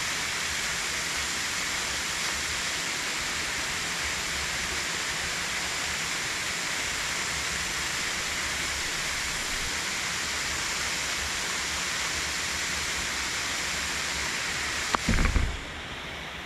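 Steady rushing of a waterfall, an even wash of water noise. Near the end comes a brief knock with a low thump, and after it the rushing is quieter.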